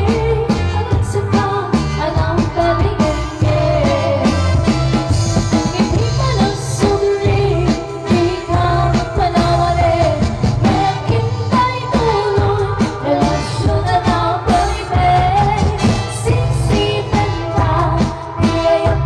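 Live band playing an Ilocano balse (waltz), with two women singing the melody into microphones over a steady bass and drum beat.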